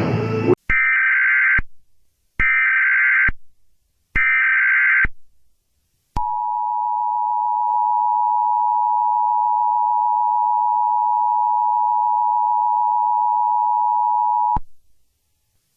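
Emergency Alert System tones: three short bursts of the SAME digital header, each just under a second with a second's gap between them. Then the EAS two-tone attention signal, held steady for about eight seconds before cutting off abruptly. Together they announce a tornado emergency alert.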